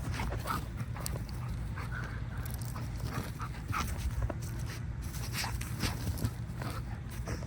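A golden retriever moving about in fresh snow: irregular short crunches and snuffles over a steady low rumble.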